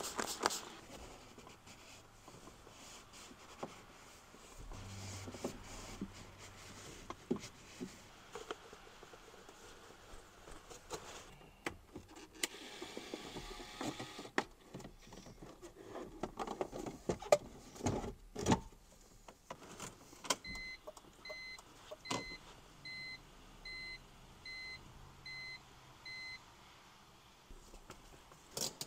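Clicks and knocks of a BMW E46 instrument cluster being handled and fitted back into the dash. About twenty seconds in, the car's dashboard warning chime beeps steadily, about eight beeps over six seconds.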